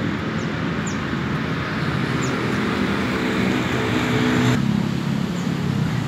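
Steady outdoor road noise with a vehicle engine humming close by, strongest through the middle of the stretch. A few short high chirps are heard over it.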